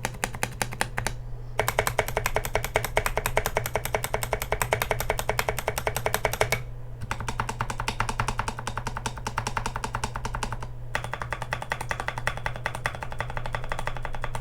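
Fast typing on a mechanical keyboard with tactile Frankenswitches built from Kailh Polia housings and Gazzew Boba U4T stems: a dense run of keystroke clacks, broken by brief pauses about 1, 7 and 11 seconds in.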